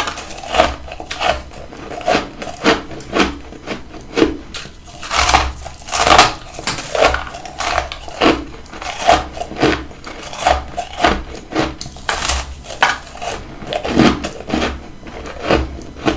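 Close-miked crunching of freezer frost being chewed, a steady run of crisp crunches, one or two a second.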